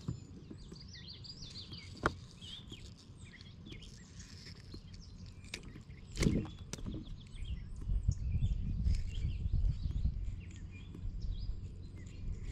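Small birds chirping and calling throughout, over low handling noise. There is a sharp click about two seconds in and a thump about six seconds in.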